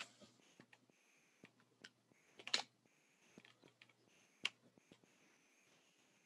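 Near silence: faint room tone with a few scattered soft clicks, the loudest about two and a half seconds in.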